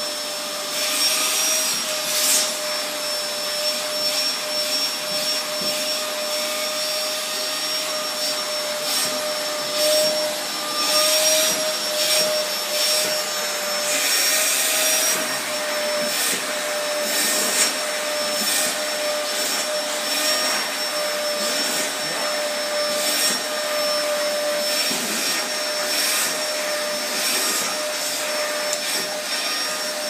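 A Hoover vacuum cleaner running steadily with a constant high whine, its hiss swelling and fading at irregular moments as it is run over a cat's coat.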